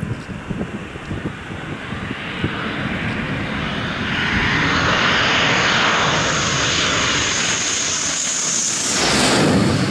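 F-15J fighter's twin turbofan engines on landing approach, growing steadily louder with a high whine. Near the end the sound peaks and sweeps sharply down in pitch as the jet passes directly overhead.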